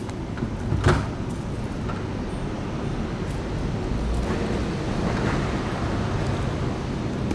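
Steady low rumble of street noise, with a short sharp rustle or click about a second in and a louder swell of noise around the middle.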